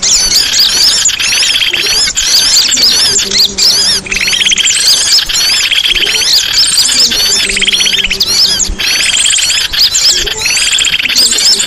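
Songbirds chirping and singing in a dense chorus of overlapping calls, with a fast trill recurring every two to three seconds.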